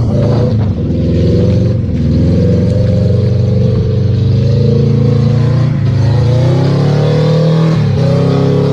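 Car engine revving hard under load in deep mud as a stuck vehicle is pulled out. The revs climb in the first couple of seconds, then hold high, with short dips about six and eight seconds in.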